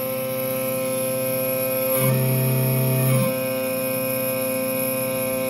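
Ghost Gunner 3S desktop CNC mill running as its end mill cuts a stainless steel slide, giving a steady, multi-toned machine whine. For a little over a second near the middle, a deeper motor tone joins in, sliding in pitch as it starts and stops.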